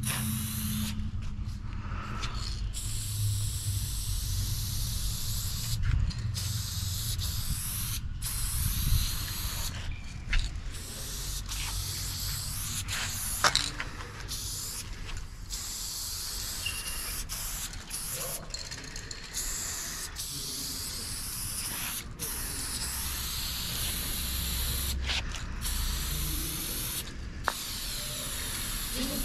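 Aerosol spray paint can hissing as it paints, in long sprays broken by several short pauses where the nozzle is let go.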